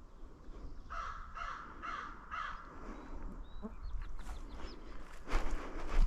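American crow cawing four times in a row, about half a second apart, with a few faint high bird notes after. Near the end there is a loud, short burst of rustling noise.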